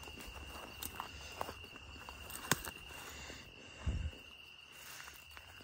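Crickets trilling in one steady high note at night, with scattered footsteps and the crackle of dry grass and brush underfoot. There is a sharp snap about halfway through and a dull low thump a little later.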